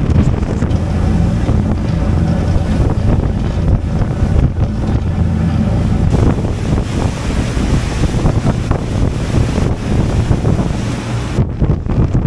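Heavy wind buffeting the microphone on an open ferry deck, over the steady low drone of the ferry's engines and the rush of its churning wake. Near the end the wind hiss drops away abruptly.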